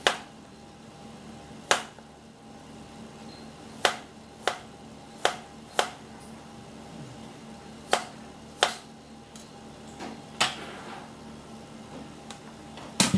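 Chef's knife slicing fresh ginger on a plastic cutting board: about ten sharp chops, unevenly spaced a second or so apart.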